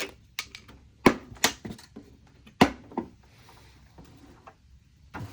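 Latches and lid of a large equipment case being unclipped and opened: a string of sharp clicks and knocks, the two loudest about a second and about two and a half seconds in.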